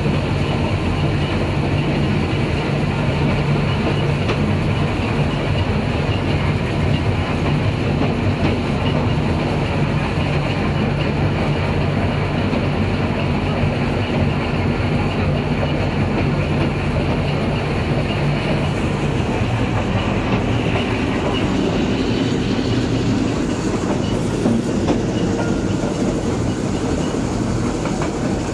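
Narrow-gauge park railway train running steadily, heard from inside an open-sided passenger carriage: continuous rumble of wheels on the rails and the moving car.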